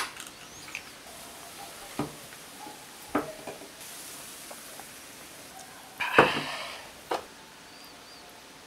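A beer can and a glass handled on a wooden table: a few light knocks, a faint fizz of beer foam, and a louder clatter with a hiss about six seconds in.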